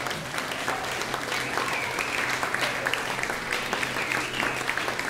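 Audience applause: many hands clapping steadily, with some voices calling out over it.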